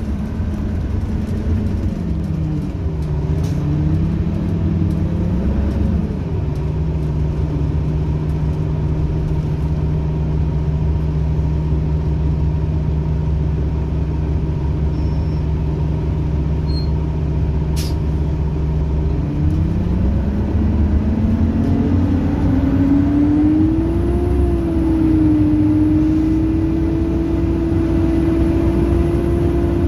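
Detroit Diesel Series 50 EGR engine of a 2001 Orion V transit bus, heard from inside the cabin. It falls in pitch as the bus slows into a stop, idles steadily for about thirteen seconds, then rises in pitch about two-thirds of the way through as the bus pulls away.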